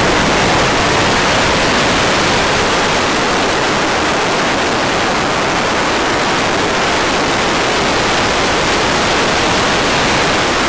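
Steady, even hiss like radio static from the analog FPV video link's audio channel, with no motor or propeller sound in it.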